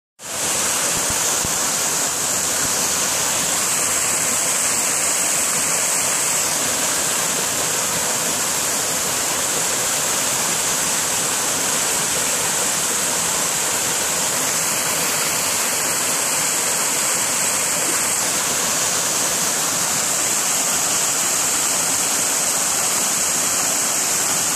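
Creek water rushing and splashing over boulders and small cascades: a steady, unbroken rush.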